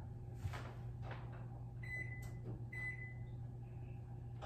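Faint electronic beeps from a kitchen appliance's control panel: two long, high beeps about a second apart starting about two seconds in, and another at the very end. A steady low hum runs underneath.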